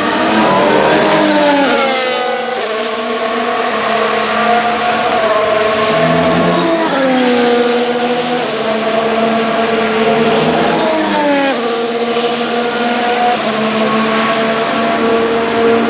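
Formula 1 cars' turbocharged V6 hybrid engines running past on track, one after another. Each engine holds a steady note and then drops sharply in pitch as the car goes by, about three times.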